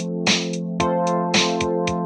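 Instrumental background music: a held chord over a steady drum beat, with a louder hit about once a second.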